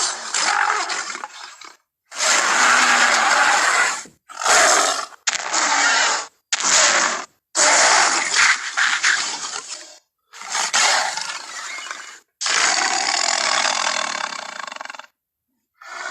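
A string of King Kong (2005) roar and snarl sound effects: about nine harsh, rough blasts, each half a second to two and a half seconds long, played one after another with short silent gaps between them.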